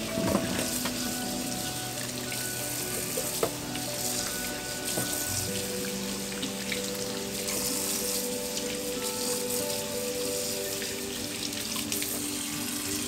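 Tap water running into a stainless steel sink and splashing over raw chicken pieces as they are rinsed and rubbed by hand. Soft background music with sustained notes plays along.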